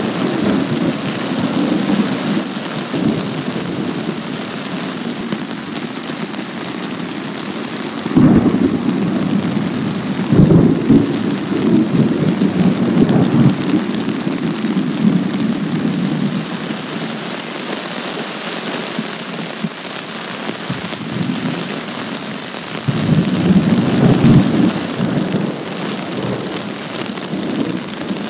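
Heavy rain falling steadily through a thunderstorm, with thunder rolling in: a sudden loud rumble about eight seconds in that keeps rolling for several seconds, and another loud roll later on.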